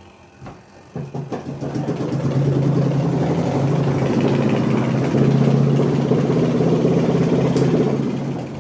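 Washing machine running with a motor hum and a loud rattling clatter. It starts about a second in and holds steady. The technician traces the rattle to cloth lodged underneath the drum.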